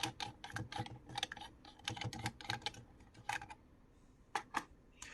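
Quick run of small metallic clicks and ticks, with a faint ring, from a Yashicaflex TLR's viewing lens being unscrewed and handled. The clicks thin out after about three seconds to a few single ticks.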